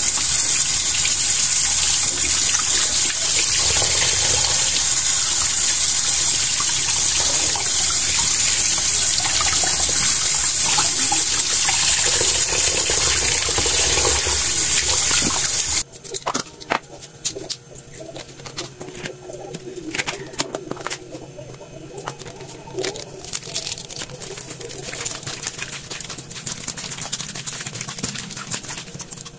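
Tap water running hard into a stainless steel sink and bowl while raw octopus is rinsed by hand. About 16 seconds in it cuts off abruptly, giving way to quieter wet handling noises and light clicks as hands knead the octopus in marinade in a metal bowl.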